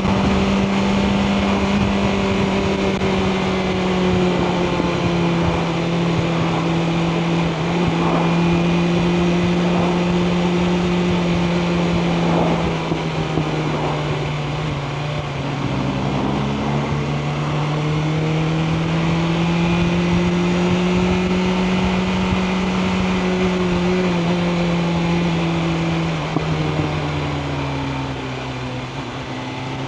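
BMW M1000R Competition's inline-four engine running at steady cruising revs under light throttle. Its note sinks and climbs gently around the middle and drops again near the end.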